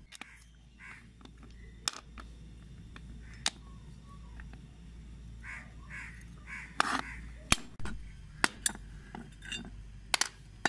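Steel parts of a pipe cutter clinking and tapping together as they are handled and fitted, in a string of sharp clicks that are loudest in the second half, with crows cawing in the background.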